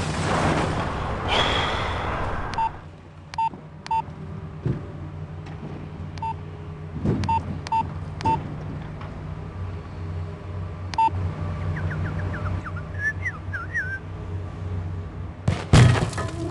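Nokia mobile phone keypad beeping as a text message is typed: short single beeps at uneven intervals, over a steady low hum. A loud rush of noise fills the first two seconds, and a sudden loud burst comes near the end.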